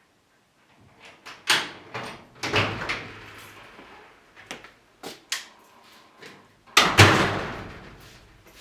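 Irregular knocks and clatters in a small room, the loudest about two and a half and seven seconds in, each trailing off over a second or so.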